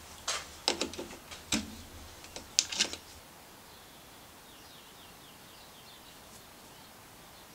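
A handful of sharp metallic clicks and knocks in the first three seconds as the turned bar is freed from the Boxford lathe's three-jaw chuck and taken out. After that it is quiet, with a few faint bird chirps.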